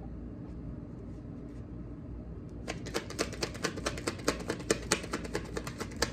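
Deck of tarot cards being shuffled by hand: a rapid run of crisp card clicks and flicks starting a little under halfway in, over a low steady hum.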